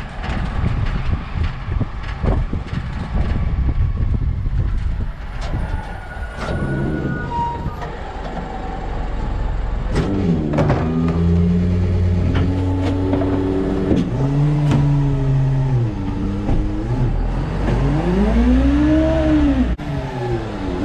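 Refuse truck under way: road rumble and wind at first, then the diesel engine pulling through its gears, its pitch climbing and dropping several times, with a last rise and fall near the end. The body and hopper knock and rattle over bumps now and then.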